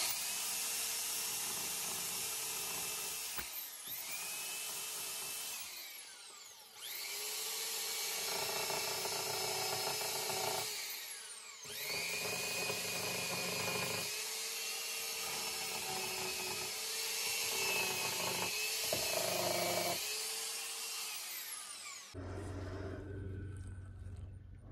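Angle grinder with a sanding disc sanding fiberglass around old bolt holes in a boat hull, grinding down to fresh glass for epoxy to bond to. It runs in four spells, briefly winding down between them with a falling pitch, and stops a couple of seconds before the end.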